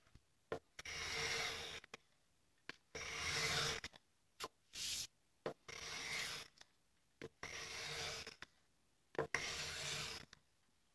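Japanese hand plane (kanna) shaving a thin wooden board in about six strokes, each a hissing scrape of roughly a second, with small clicks as the plane is set back between strokes.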